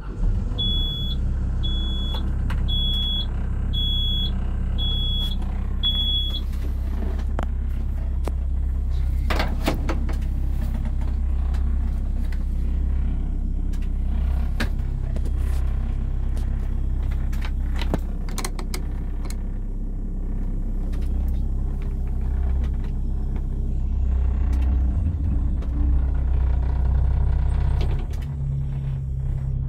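Hyundai Robex 140LC-7A excavator's diesel engine running steadily just after start-up, heard from inside the cab. Six short, high electronic beeps about a second apart sound in the first few seconds. Near the end the engine note steps up in pitch.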